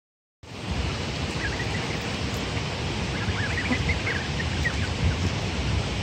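Steady rush of a waterfall, with a scatter of faint, short high peeps from Canada goose goslings between about one and five seconds in.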